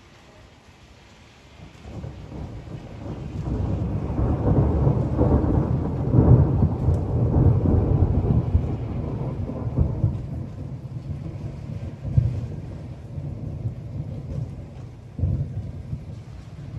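Rolling thunder: a low rumble starts about two seconds in, swells to a long loud peak, then slowly dies away with a few smaller rumbles later on.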